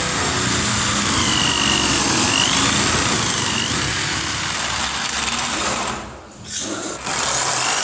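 Electric drill boring into a wooden door, its motor whine rising and falling as the bit loads up. It lets off briefly about six seconds in, then runs again.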